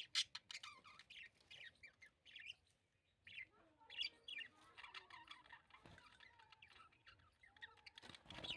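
Budgerigars chirping in many quick short calls, with a lower warbling chatter joining from about three and a half seconds in.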